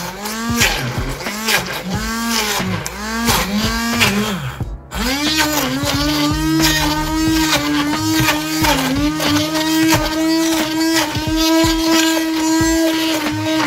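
Electric blender puréeing fruit: the motor pulsed about every three-quarters of a second, its pitch rising and falling with each pulse, then after about five seconds running continuously at a steady pitch with slight dips under load.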